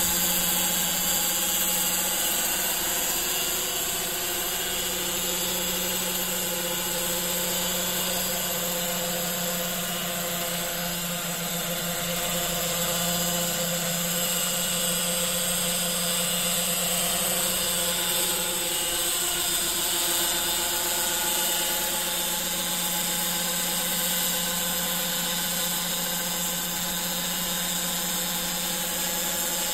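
Scale model Ka-26 coaxial helicopter in flight, its small motor and twin rotors running with a steady, high-revving whine that holds nearly the same pitch throughout.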